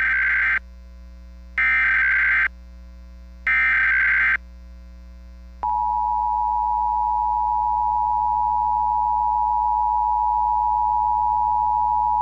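Emergency Alert System SAME header: three short bursts of harsh data screech, about two seconds apart. A few seconds in, a loud, steady two-tone attention signal begins and holds without a break.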